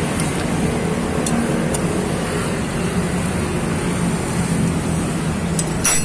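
Steady traffic noise, with a few light metal clicks as a T-handle socket wrench works the bolts of a scooter's crankcase cover. The sharpest click comes just before the end.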